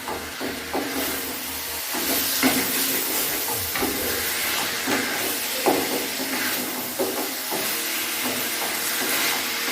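Chicken pieces frying in mustard oil in a kadai: a steady sizzle with scattered sharp pops.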